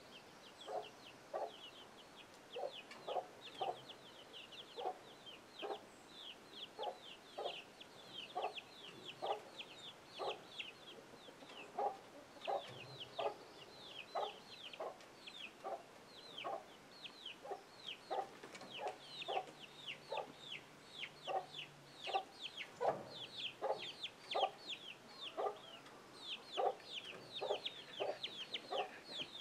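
A hen clucking steadily, about two clucks a second, over the continuous high, falling peeps of young chicks.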